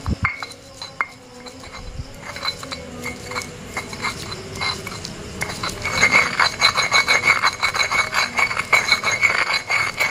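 Garlic being ground to a paste in a stone mortar (cobek) with a stone pestle: rapid scraping and clinking of stone on stone, quicker and louder from about six seconds in.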